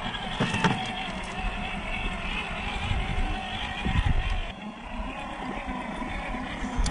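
Electric 370 motor and metal two-speed gearbox of a WPL B36 Ural 1/16 scale RC truck whining as it crawls over rock. The whine wavers in pitch and eases off briefly about four and a half seconds in, with a few low knocks around half a second and four seconds in.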